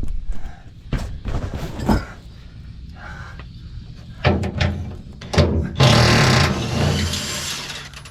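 Knocks and thunks of metal parts and tools being handled, with a longer stretch of rough, scraping noise about six seconds in.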